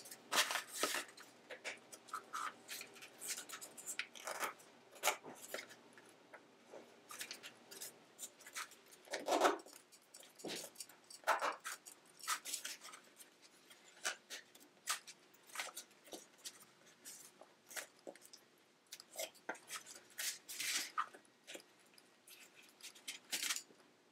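Rattan reed being threaded and pulled through the woven sides of a reed basket: irregular crackling, creaking and scraping as the stiff reed rubs past the weavers.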